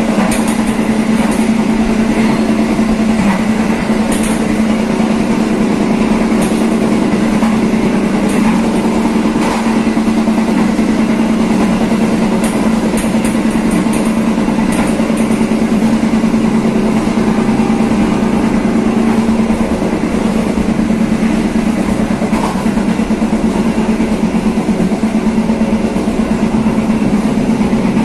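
Passenger train running along the line, heard from its rear: a steady, loud hum with rolling wheel and rail noise and a few faint clicks.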